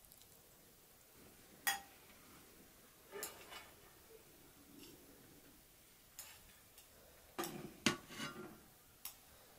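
Cutlery clinking and tapping against dishes now and then: a few separate light knocks, with a quick cluster of them about three-quarters of the way through.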